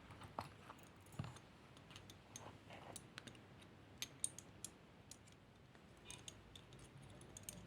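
Jewellery being handled: soft, irregular clicks and light taps, with a couple of sharper clicks about four seconds in.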